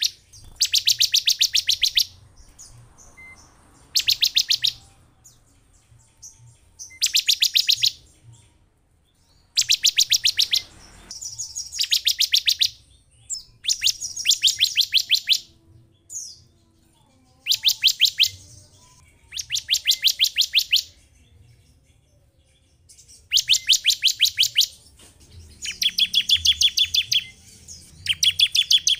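Bar-winged prinia (ciblek) calling in rapid, high, ticking trills, each about a second long, repeated about every two to three seconds. This is a lure call for provoking other ciblek into singing.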